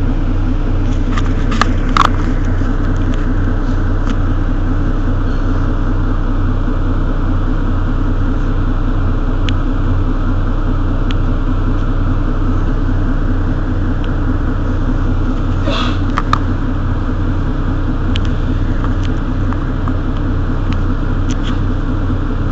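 Mercedes-Benz Citaro city bus's diesel engine running at a steady idle, with no revving. A few sharp clicks come about two seconds in and again about sixteen seconds in.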